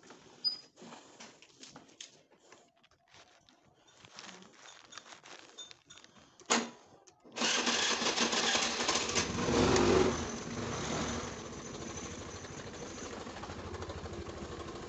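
Scattered faint clicks and handling noises, with one sharp click about six and a half seconds in. Then a scooter's small engine comes in suddenly and runs steadily as the scooter rides along, louder for a moment around ten seconds in.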